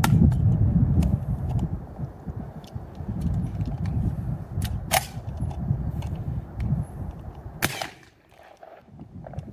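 A Dickinson XXPR semi-auto 12-gauge shotgun being worked after a double feed: three sharp cracks, at the start, about five seconds in and near the end. Small clicks come between the cracks over a low rumble that drops away near the end.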